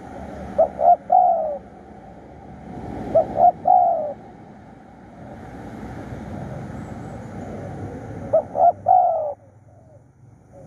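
Spotted dove cooing three times. Each phrase is two short notes followed by a longer falling coo, over steady background noise.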